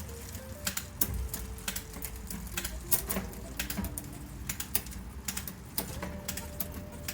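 Sharp, irregular clicks of a Microshift 11-speed gear system being shifted, the shifter clicking and the chain jumping across the rear cogs, a few clicks a second.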